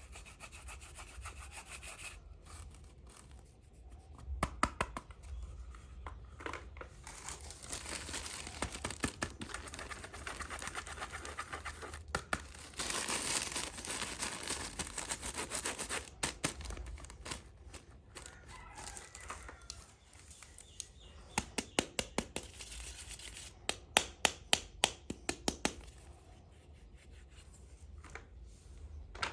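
Hands handling small plastic toy pieces and their packaging. Rubbing and rustling, with several runs of quick, light clicks and taps.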